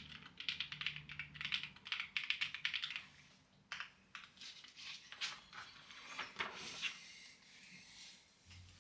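Clacky computer keyboard being typed on in quick runs of keystrokes. After about three seconds the keys come slower and more scattered, and they die down near the end.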